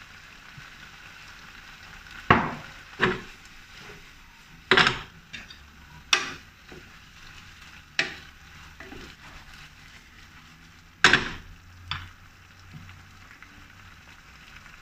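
Shrimp sizzling in sauce in a frying pan while a wooden spatula stirs and flips them. There is a steady, soft sizzle throughout, and about seven sharp knocks and scrapes of the spatula against the pan, which are the loudest sounds.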